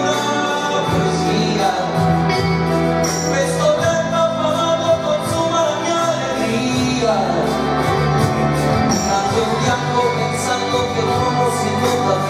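Live pop ballad played by a rock band with a string orchestra, a male voice singing over it through the hall's sound system, with a steady beat of drums and percussion.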